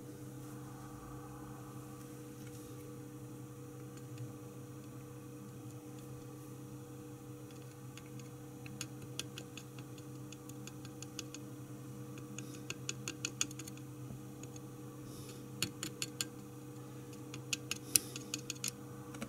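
Metal tip of a small screwdriver tapping lightly on the solder joints and connector pins of a throttle body's mass air flow sensor circuit board while dabbing on flux. The tapping comes as quick clusters of clicks from about halfway through, over a steady low electrical hum.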